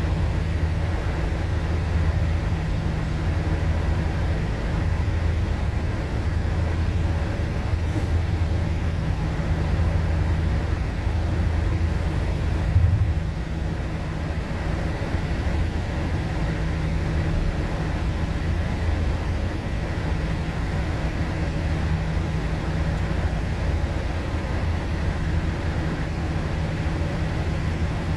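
MAN ND323F double-decker bus running: a steady low engine drone with road noise that swells and eases as it drives. There is a brief thump about halfway through.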